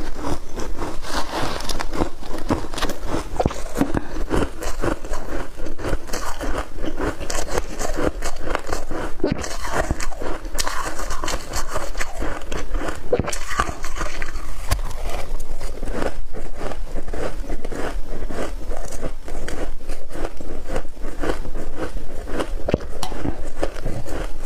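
Shaved ice being chewed close to the microphone: a dense, continuous run of small crunches and crackles as the ice breaks up in the mouth.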